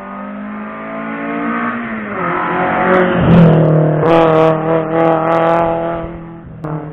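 Race car accelerating hard up the hillclimb road past the microphone, its engine revving up through several gear changes. It is loudest about halfway through as it passes, with a few sharp cracks mixed in, then fades away.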